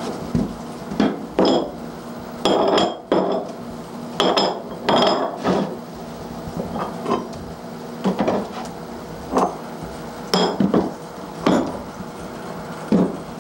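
Clamping weights being lifted off a glued-up plywood box and set down: a string of about a dozen separate knocks and clinks, some with a short ring.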